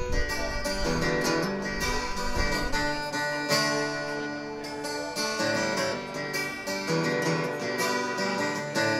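Acoustic guitar strummed in the instrumental intro of a live song, before the vocals come in.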